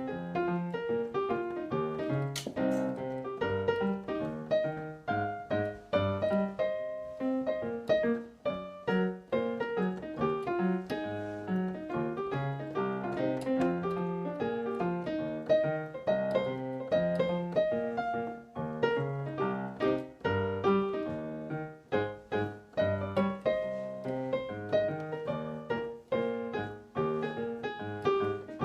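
Solo piano playing an instrumental break of the song, a steady flow of chords and melody.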